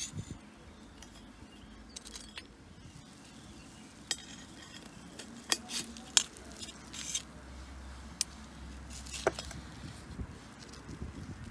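A metal knife clinking against a metal skewer and a grill pan as grilled chicken pieces are slid off the skewer: a handful of sharp clinks, starting about four seconds in.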